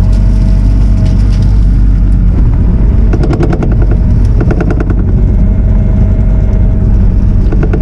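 Bobcat T650 compact track loader's diesel engine running loud and steady under load, with a steady whine over it. Rapid clattering comes in two short spells about three and four and a half seconds in.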